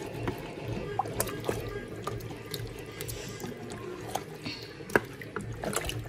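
Thick tomato stew with meat simmering in a pot, bubbling wetly, with a few sharp pops or clicks along the way.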